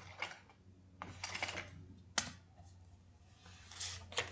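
A few light clicks and small knocks of objects being picked up and set down on a tabletop, with a sharp single click a little after two seconds, over a low steady hum.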